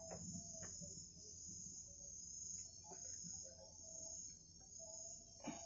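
A few faint clicks as pliers squeeze a metal clamp tight onto a motorcycle's ground cable, over a steady high chirring of insects.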